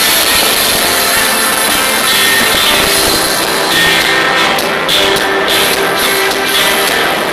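Live rock band playing, guitars and a held note over a dense wash of sound, picked up loud and distorted by a mobile phone's microphone.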